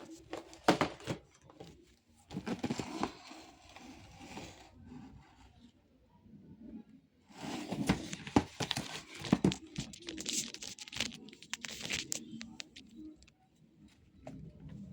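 Toy packaging being handled and opened: crinkling and tearing in three stretches with sharp clicks, the longest about halfway through, separated by quiet pauses.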